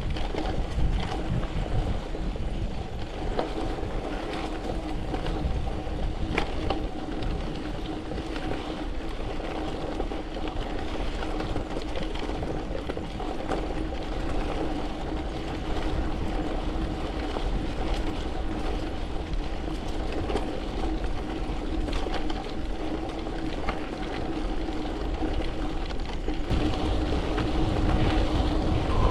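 Gravel bike rolling over sand and gravel: wind buffets the handlebar-mounted camera's microphone, over the tyres' rolling noise, scattered small rattles and clicks, and a faint steady hum. The wind rumble grows louder near the end.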